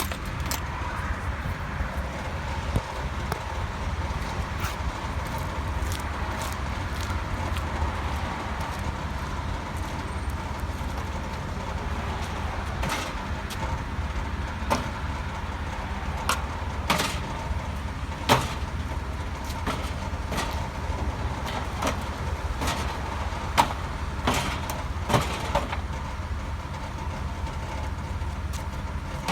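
Steady low vehicle rumble with scattered sharp knocks and rattles throughout.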